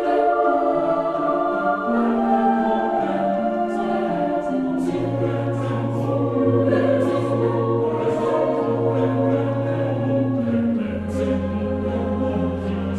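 Background music of a choir singing held chords, with a low sustained bass note coming in about five seconds in and dropping lower near eleven seconds.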